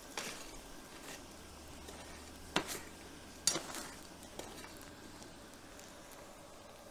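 Red-hot 55 lb cast iron anvil cooling in a tub of quench water: a steady sizzle of water boiling against the metal, broken by a few sharp pops, the loudest about two and a half and three and a half seconds in.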